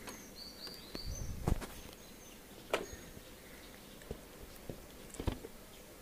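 Scattered clicks and knocks of a Honda CB Shine's seat being unlocked with the key and lifted off the frame, the loudest knock about a second and a half in. A few faint high chirps sound in the first second.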